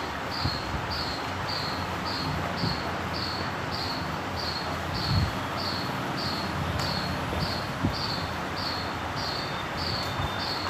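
Cloth rubbing and wiping over the plastic outer cover of a Honda Activa scooter's air filter box, with a few soft knocks, over a steady hiss. A short, high chirp repeats about twice a second behind it.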